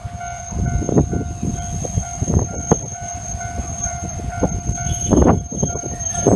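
Railway level-crossing alarm ringing its repeated electronic tone while a Hankai Tramway streetcar approaches, its wheels rumbling with heavy clunks over the rail joints.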